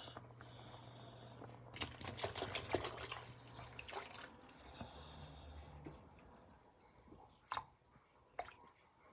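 Milk poured in a stream into a pot of boiling rice, splashing faintly for about two seconds starting nearly two seconds in, over a faint low hum; a few small clicks follow.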